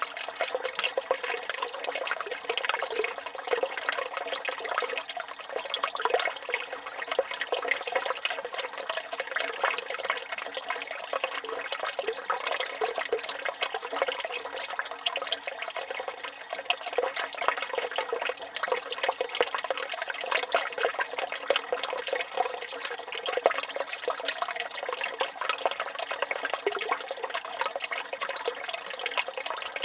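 Water pouring steadily from a village fountain's spout and splashing into its stone basin, a continuous splashing with no pauses.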